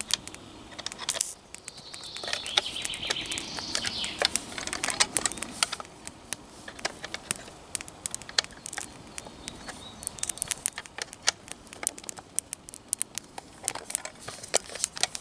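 Small campfire of brushwood twigs crackling, with irregular sharp snaps and pops as the kindling burns through.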